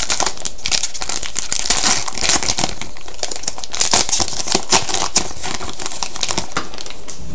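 Hockey card pack wrapper being torn open and crinkled in the hands, a dense crackling rustle that eases off near the end.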